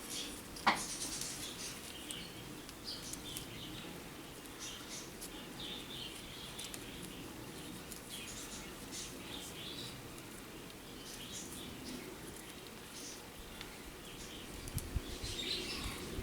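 Small birds chirping in the background, with scattered light clicks, one sharp click about a second in and a few low thumps near the end.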